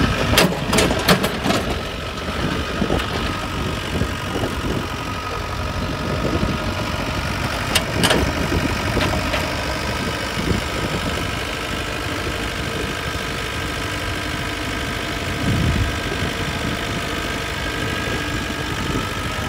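IHI mini excavator's diesel engine running steadily while the machine works. A few sharp clacks cut through it in the first two seconds and again about eight seconds in.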